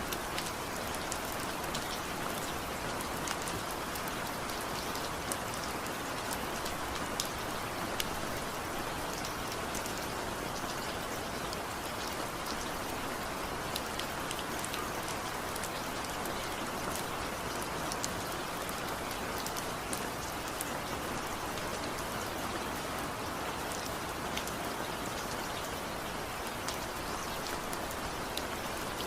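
Steady rain falling, with many individual drops ticking sharply on a surface over an even hiss.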